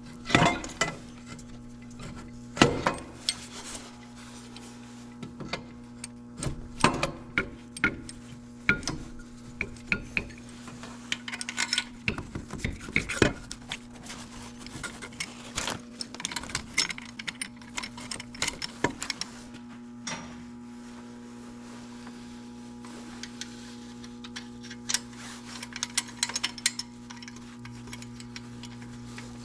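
Metal tools and parts clinking and knocking irregularly as an alternator is worked into place in the engine bay, over a steady low hum. The clinks thin out about two-thirds of the way through.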